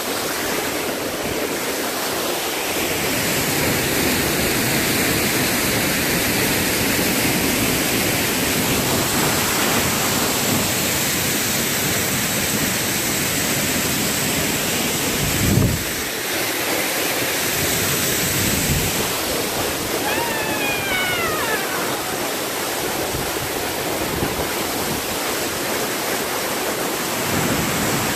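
Steady rush of a tall waterfall close by, an even wash of noise. A low thump comes about fifteen seconds in, and a short falling pitched call is heard about twenty seconds in.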